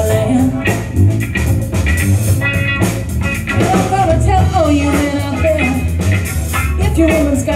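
Live rock band playing: electric guitars, bass guitar and drum kit, with a bending melodic line over a steady low bass.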